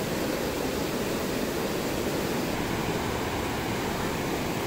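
Fast-flowing river water rushing steadily below a bridge, an even unbroken rush.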